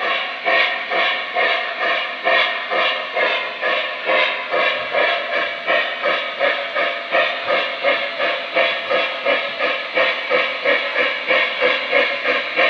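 Lionel Flyer S-gauge Berkshire model steam locomotive running, its onboard sound system giving a steady steam chuff of about two beats a second.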